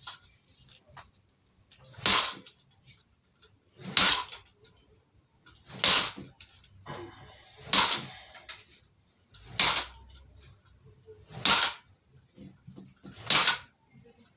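A fishing rod whipped against a bare back again and again: seven sharp slaps, evenly spaced about two seconds apart.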